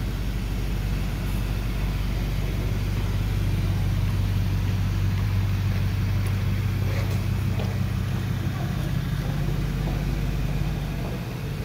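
Porsche Panamera Turbo's twin-turbo V8 idling steadily, with no revving.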